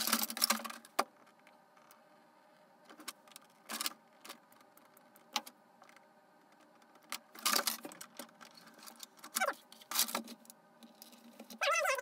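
Handling noise: the hard plastic body shell of a 1/10-scale RC crawler is moved, knocked and rubbed on a wooden workbench while door handles are screwed on, with small clatters of tools. A longer run of noise about a second long at the start, a few single knocks around three to five seconds in, then a busier cluster of knocks later on.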